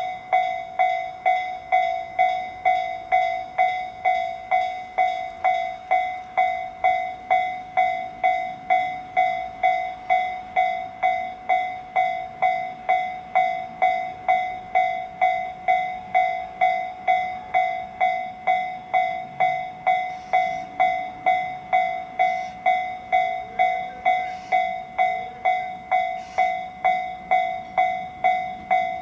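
Japanese railway level-crossing alarm ringing its repeated electronic bell tone, a little under two strikes a second without a break. A faint low rumble of the approaching double-headed EF64 electric locomotives runs underneath, growing slightly in the second half.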